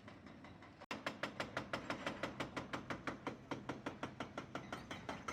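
Rapid, even mechanical hammering, about eight blows a second, starting abruptly about a second in: a powered hammer such as a jackhammer or hydraulic breaker pounding on concrete.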